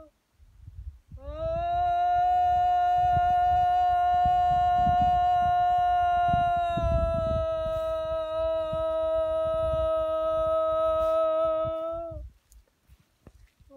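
A woman's voice toning: one long vowel held on a single pitch for about eleven seconds, sliding up into the note at the start and dipping slightly about halfway.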